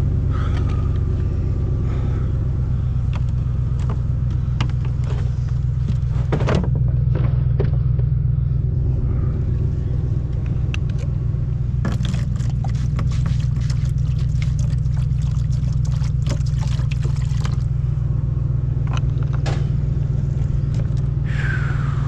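A vehicle engine idling steadily, a low even hum, with scattered clicks, knocks and plastic rattles as a cooler is opened and a plastic bottle is handled. The handling noises cluster most thickly in the middle of the stretch.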